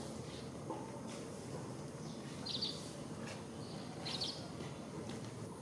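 Steady outdoor background noise with two short high chirps about a second and a half apart.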